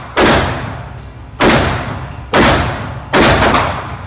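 Semi-automatic pistol fired four times at a steady pace, about one shot a second, each report ringing on in the echo of an indoor range.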